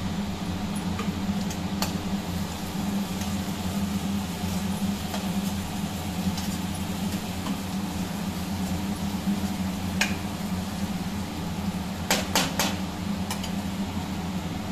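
Steel spoon stirring and scraping a thick onion masala in a steel kadai, with a few sharp clinks of the spoon against the pan, several in quick succession near the end, over a steady low hum.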